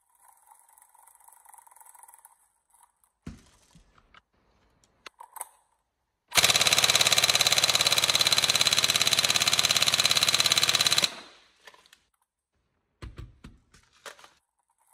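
A Tokyo Marui 416 Next Generation Recoil Shock electric airsoft rifle with a Warhead high-speed motor fires one long full-auto burst of about four and a half seconds during a stress test. The gearbox and recoil mechanism cycle in a rapid, even rattle that starts about six seconds in and stops suddenly. A few faint handling clicks come before and after the burst.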